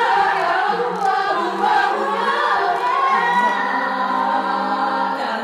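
Women's a cappella ensemble singing in close harmony without accompaniment, moving through a short phrase and then holding a sustained chord.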